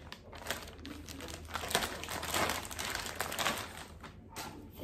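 Clear plastic zip bag crinkling in short irregular bursts as it is pulled open and a mesh ball net is drawn out of it.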